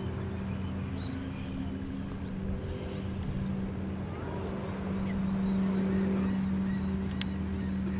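A steady low engine drone with a constant hum, and one sharp click about seven seconds in.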